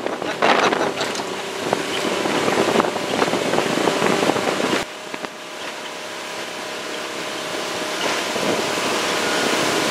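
Wind rushing over the microphone on a moving boat, mixed with the boat's running motor. The noise drops suddenly about five seconds in, then slowly builds again.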